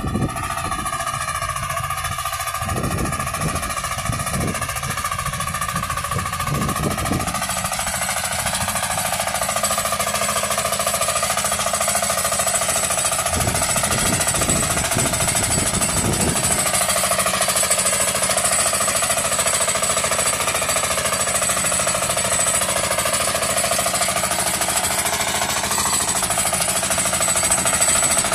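Walk-behind hand tractor's engine running steadily under load as it drags a plow through heavy soil. Heavy low rumbles come and go in the first several seconds and again around the middle.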